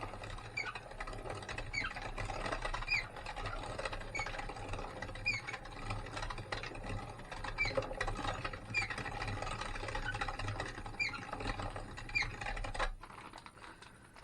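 Weston No. 32 electric meat grinder running under load as it grinds tough venison leg meat, with a short high squeak about once a second. The motor shuts off near the end.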